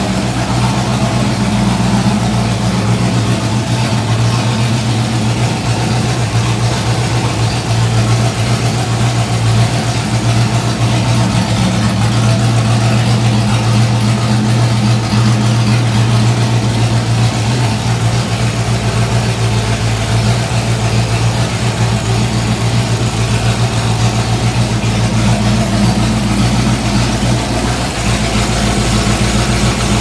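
1966 Mustang's 289 HiPo V8 with a Holley four-barrel carburetor idling steadily at operating temperature. The ignition coil is fed 12 volts straight from the battery, bypassing the ignition switch, and the engine keeps running without the stalling and backfiring it had when hot, which points to low voltage from the ignition switch as the fault.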